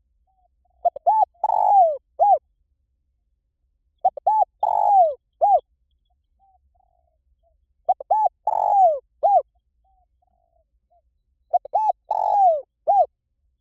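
Spotted dove cooing, four phrases about four seconds apart: each has quick short coos, a longer falling coo and a final short note, with soft quiet coos in the gaps.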